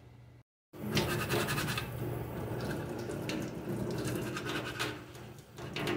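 Rough scrubbing pad rubbing over a PLA+ 3D-printed box in a run of scratchy strokes, under hot tap water running into a stainless steel sink. The scrubbing knocks loose the stringing on the print. The sound starts under a second in, after a brief dropout.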